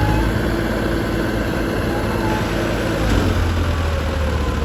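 Heavy diesel machinery engine running steadily, its low note shifting about three seconds in.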